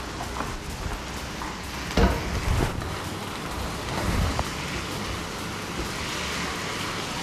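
Shrimp and snow peas sizzling in a hot wok as a steady hiss while a spatula stirs them, knocking against the pan about two seconds in.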